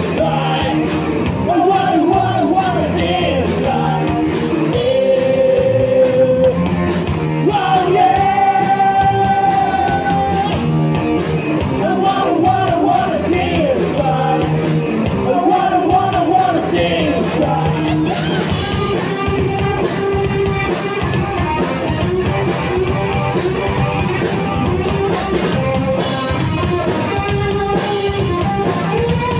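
Live rock band playing: sung vocals over electric guitar, bass guitar and drums. The first half carries sung lines with long held notes; after about eighteen seconds the singing steps back and the drums and cymbals come forward.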